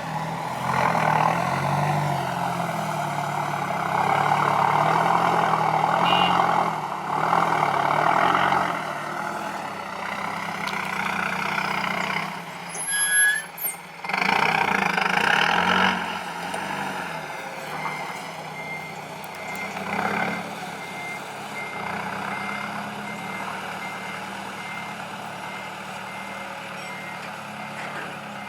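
Heavy diesel engines of an excavator and dump truck at work, the engine note rising and falling in the first half. From about two-thirds of the way in, a reversing alarm beeps at a steady, regular rate.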